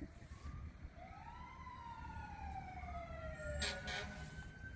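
Emergency vehicle sirens from a passing procession of police and fire vehicles, heard faintly. Several overlapping wails slowly rise and fall in pitch over a low rumble.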